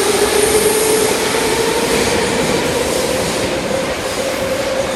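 81-717/714 metro train running, a steady loud rushing noise with a whine that slowly rises in pitch.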